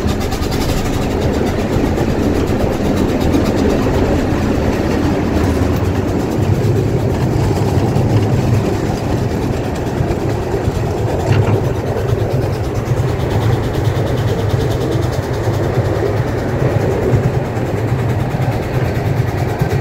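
Miniature steam train running on its narrow-gauge track: a steady rumble and clatter from the wheels and the locomotive, heard from the car just behind the engine. A deeper hum comes in about six seconds in.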